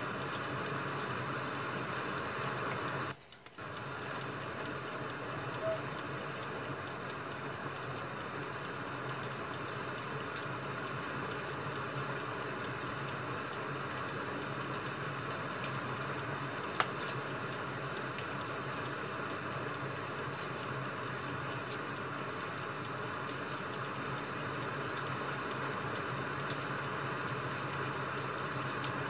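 Steady rain-sound ambience, an even hiss of falling rain, that cuts out briefly about three seconds in. A couple of light clicks stand out about two-thirds of the way through.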